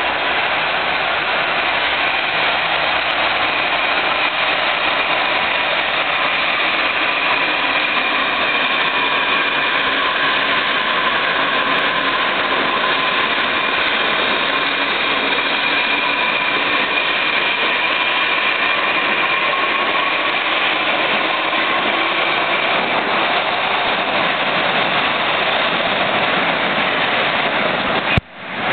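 An 81-71M metro train running through the station without stopping, a loud steady din of steel wheels on the rails and traction motors, with faint whining tones over the noise. It cuts off abruptly near the end.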